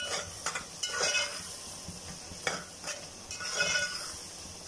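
A metal spoon scrapes and stirs peas, onion and masala frying in ghee in a metal pot, over a steady sizzle. The scrapes come irregularly, at times about every half second, with a few brief metallic squeaks of spoon on pot.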